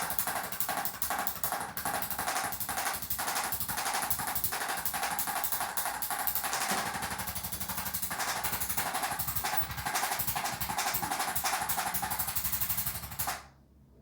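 Percussive massage gun running against the body, a fast, even hammering buzz that cuts off suddenly near the end.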